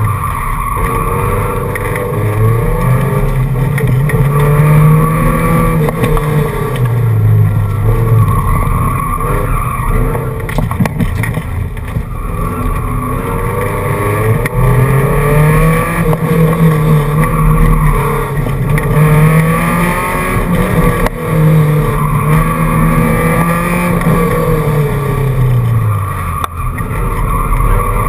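Race car's engine heard from inside the stripped cabin, revving up and down through a sprint course: the pitch climbs under acceleration, holds, and drops sharply several times as the driver lifts or changes gear.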